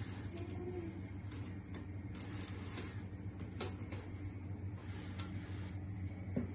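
Scattered light clicks and scrapes of a table knife spreading chocolate spread over a pancake on a wooden cutting board, over a steady low hum.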